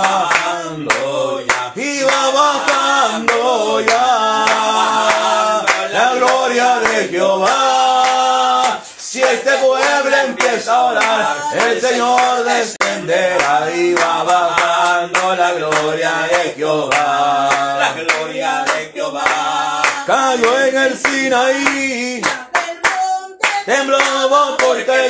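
A man singing a Spanish evangelical worship chorus, with hand clapping in time. The singing breaks briefly about nine seconds in.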